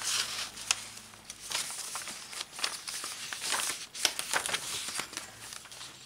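Paper rustling and crinkling as the cardstock pages and paper pockets of a handmade journal are handled and turned, in a run of short, irregular rustles.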